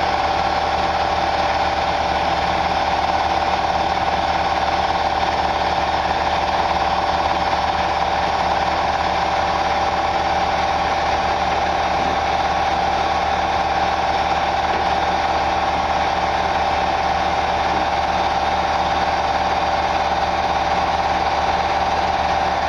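A machine running steadily, with a constant mid-pitched hum over a mechanical noise that does not change.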